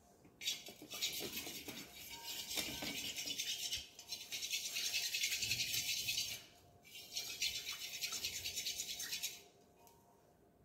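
Rattling, shaker-like sound in three stretches of about three seconds each, with short breaks between them, while more green candle dye is worked into melted paraffin wax.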